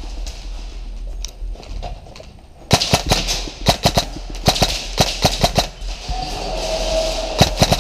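Airsoft guns firing in several short bursts of rapid shots, sharp cracks starting a little under three seconds in and coming in clusters until near the end.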